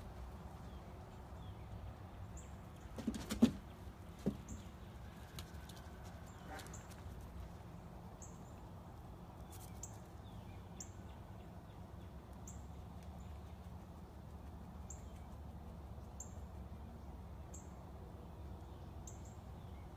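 Quiet room tone with a faint, short, high chirp repeating roughly once a second, and a few sharp knocks about three to four seconds in.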